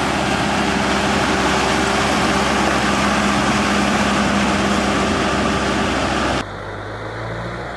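Diesel tractor engine running steadily under load as the tractor drags a cage-roller puddling implement through a flooded rice paddy. About six seconds in, the sound drops abruptly to a quieter engine hum.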